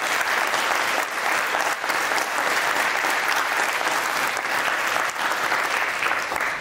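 An audience clapping: loud, steady applause from many people.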